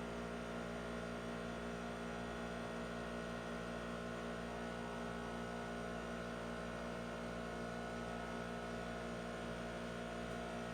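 Steady electrical mains hum and buzz, a set of unchanging tones over faint hiss, with no other sound.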